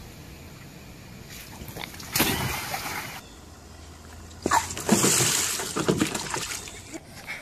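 Water splashing in a children's plastic wading pool: a short splash about two seconds in, then a longer, louder splash from about four and a half seconds in.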